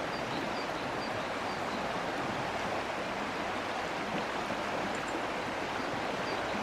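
Rushing water of a fast river running high over rapids: a steady, even noise. The walkers put the high water down to spring snowmelt.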